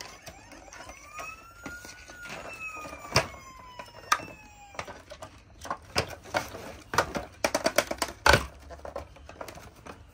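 Plastic toy ambulance handled while its packaging ties are pulled free: squeaky tones gliding up and down in the first half, then a quick run of plastic clicks and knocks as the toy is turned over.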